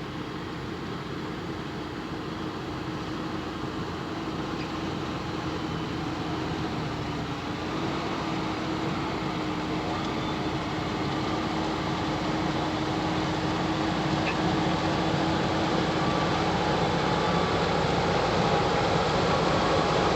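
Fendt 724 Vario tractor's six-cylinder diesel engine working steadily while pulling a six-furrow plough, growing gradually louder as it approaches.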